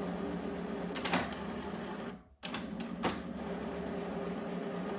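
HP printer running its mechanism during setup: a steady whir with a sharp click about a second in and another about three seconds in, and a brief drop in the sound a little before halfway.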